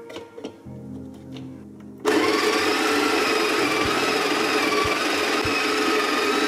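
Breville Smart Grinder Pro's motor and stainless-steel conical burrs start about two seconds in and grind coffee beans at a coarse pour-over setting. The grinding is a loud, steady whir with an even whine.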